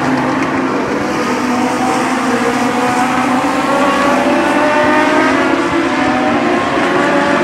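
A pack of Legends race cars running at speed, their motorcycle engines revving high. Several engine notes climb slowly in pitch from a couple of seconds in as the cars accelerate.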